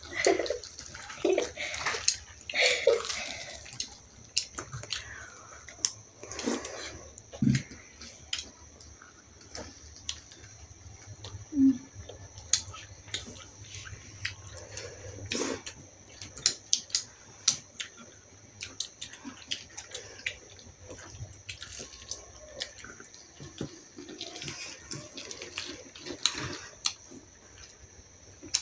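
Close-up eating sounds of poori being chewed by hand: wet chewing and lip smacks with many small scattered clicks, over a faint steady high whine.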